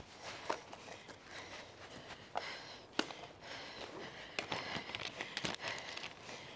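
Riding noise from a fixed-gear bicycle on an asphalt street: a faint steady hiss broken by irregular clicks and knocks.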